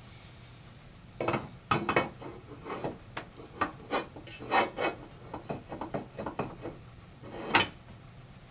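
Metal wall-mount plate clanking and scraping against the metal mounting bracket on the back of a TV as it is set in place and shifted: a run of irregular knocks and rubs starting about a second in, with the loudest clank near the end.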